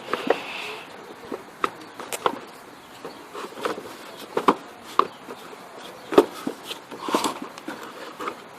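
Irregular small clicks and knocks of pump parts being handled and fitted together during reassembly, some with a brief ring.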